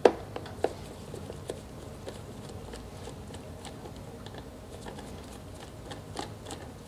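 Scattered faint clicks and taps of a flathead screwdriver working the fastener off a Briggs & Stratton mower engine's air filter cover, over a steady low hum.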